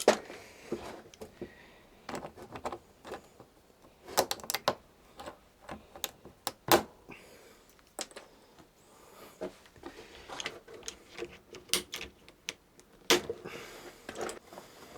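Irregular sharp clicks and taps of plastic door-trim clips being handled and worked on the trim panel, with small bunches of clicks and one louder snap near the middle.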